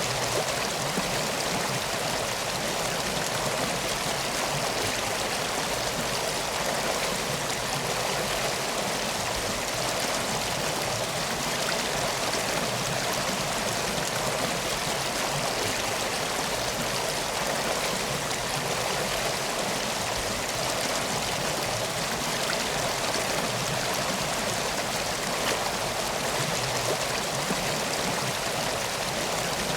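Steady, even rush of flowing water, like a stream, with no breaks or changes.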